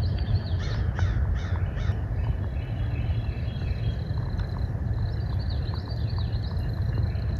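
American crows cawing: a quick series of about five harsh caws early, then fainter caws a few seconds later, over a steady low rumble.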